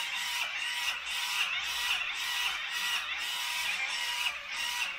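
Wet-and-dry epilator running against armpit skin with a steady high whir, its rotating tweezer head plucking out hairs. The sound dips and recovers about twice a second as the head is swept back and forth.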